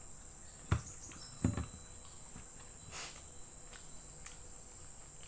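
A ceramic dinner plate set down on a hard table top: two short, low knocks, about a second in and again half a second later, then a few faint small ticks.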